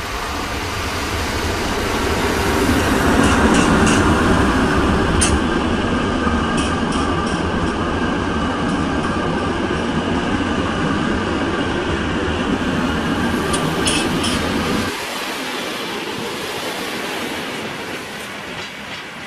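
Electric locomotive hauling passenger coaches past at close range, a steady rumble of the train with wheels clicking over rail joints. It grows louder over the first few seconds, and the deep rumble drops away suddenly about 15 seconds in.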